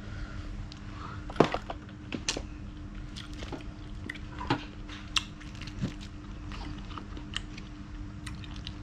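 A person chewing and biting food close to the microphone, with irregular crunches and wet clicks, the loudest about a second and a half in, over a steady low hum.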